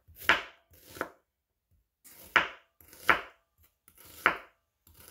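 A kitchen knife chopping a white onion on a wooden cutting board: five separate, slow, unevenly spaced cuts, with a pause of about a second after the second one.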